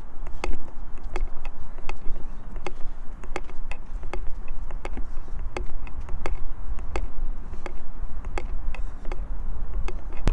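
Jogging footsteps on a paved path, an even beat of about three steps a second, over a steady low rumble of movement noise on the phone's microphone.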